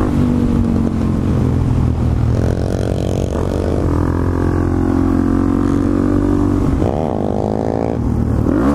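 Single-cylinder four-stroke engine of a 2009 Suzuki DR-Z400SM supermoto running under way, its pitch rising and falling with the throttle, with a quick climb and drop near the end as the rider shifts and rolls on again.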